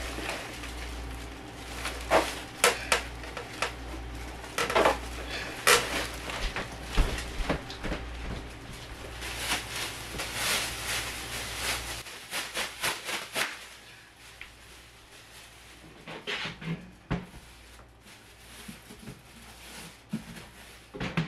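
Plastic kitchen trash bags rustling and crinkling as they are handled, a fresh bag shaken open and fitted into a step trash can. The irregular crackling is busiest in the first half and grows quieter after about thirteen seconds.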